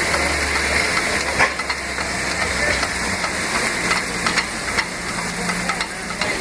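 Peerless Z3 steam traction engine running on the belt to a sawmill: a steady hiss of steam with a low hum underneath and scattered light clicks and knocks.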